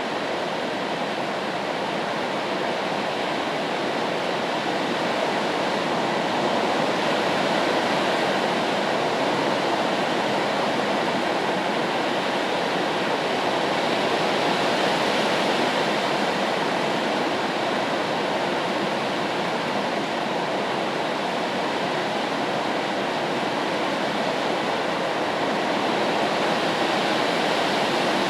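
Steady rain used as white noise: an even, unbroken hiss of falling water that swells and eases slightly every several seconds.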